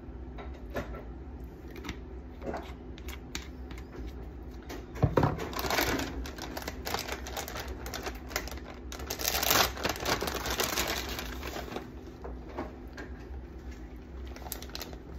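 A plastic bag of shredded cheese crinkling as it is opened and handled, with scattered small clicks and taps; the crinkling is densest in the middle stretch.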